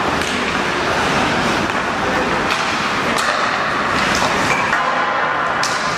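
Ice hockey arena din during play: a steady wash of skates on ice and crowd noise, with a few sharp clacks of sticks and puck scattered through it.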